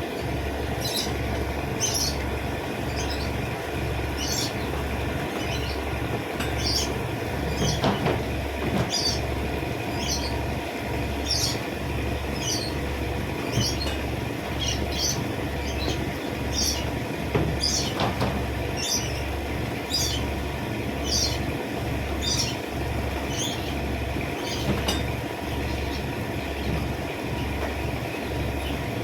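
Small birds chirping repeatedly in short, sharp calls over a steady low mechanical throb that pulses about once a second.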